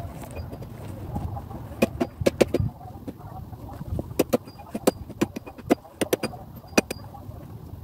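Hatchet striking wood on a stump chopping block: a series of sharp, irregular cracks in two bursts, the first about two seconds in and the second from about four seconds on.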